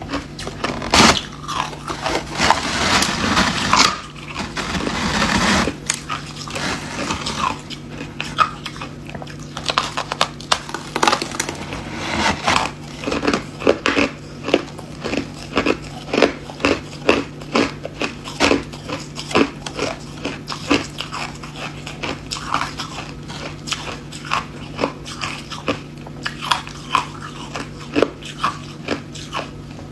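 Close-up crunching of hard ice being bitten and chewed: a dense burst of loud crunches in the first few seconds, then sharp crunches at about two a second.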